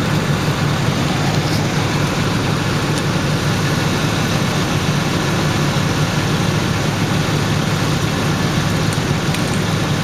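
Steady low engine hum of a motor vehicle idling close by, with an even hiss over it and no change.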